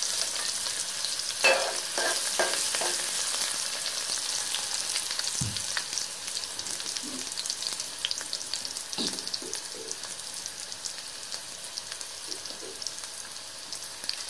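Chopped onion sizzling in hot oil in an aluminium pot, a steady frying hiss that slowly quietens. A few light knocks sound around the second and third seconds and again near the ninth.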